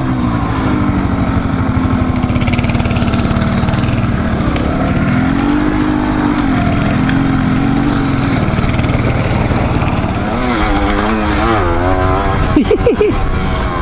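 Dual-sport motorcycle engine running under way on a dirt trail, holding a steady note with a rise and fall in revs about six seconds in and more changes in revs near the end.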